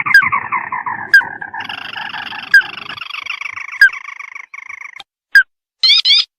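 Recorded lure call of the sintar mata merah bird: a rapid pulsed trill that slides down in pitch and then holds steady, stopping about five seconds in. Short rising chirps come about every second and a quarter, and a low rumble lies under the first three seconds.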